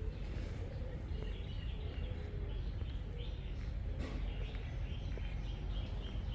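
Small birds chirping and twittering in many short notes, some high and some lower, over a steady low rumble.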